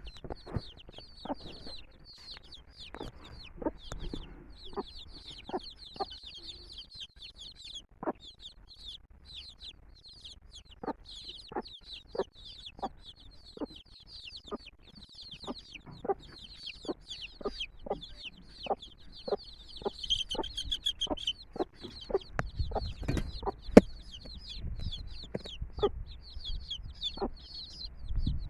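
A brood of chicks peeping continuously in high, quick chirps, while the mother hen clucks over them in short, repeated clucks. A low rumble and one sharp click come about three quarters of the way through.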